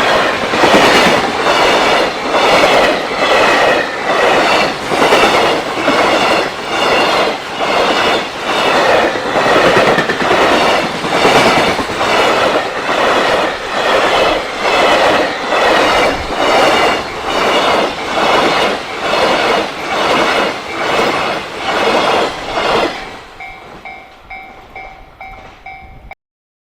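JR Freight train passing through a level crossing at speed, its wagon wheels clacking over the rail joints about once a second. The clacking stops about 23 seconds in as the train clears, leaving the crossing's pulsing electronic warning bell ringing faintly.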